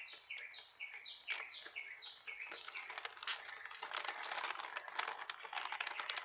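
A songbird singing a run of repeated down-slurred notes, about three a second, which stops about three seconds in; after that, dense clicking and crackling.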